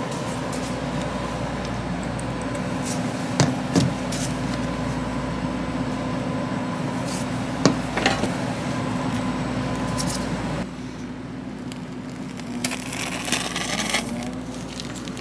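Steady hum of kitchen equipment, with a few sharp clicks and knocks as sauce bottles and utensils are handled on the counter, and a short rough hissing near the end.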